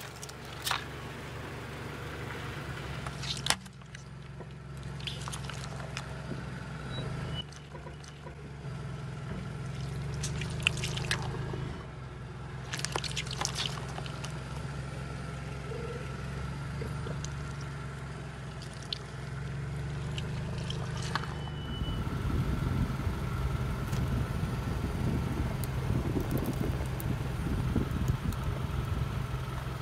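Car engine idling close to the ground, a steady low hum, while a tyre rolls slowly over objects on wet pavement. There are a few scattered sharp cracks, and a louder, denser crackle from about two-thirds of the way through.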